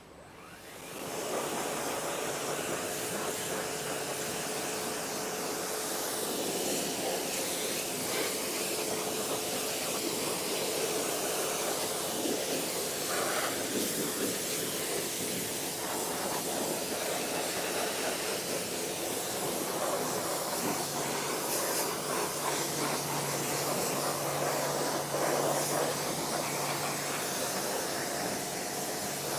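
Stihl REA 60 Plus battery pressure washer spraying water, a steady hiss with a faint steady hum from its motor and pump underneath; the spray starts about a second in.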